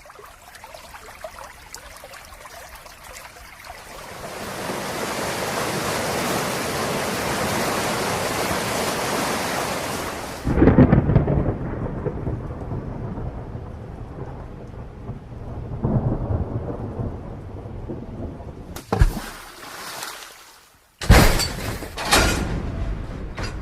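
Rain that swells to a heavy, steady downpour, then thunder: a loud low rumble about ten seconds in, with rolling rumbles afterwards and a few sharp cracks near the end.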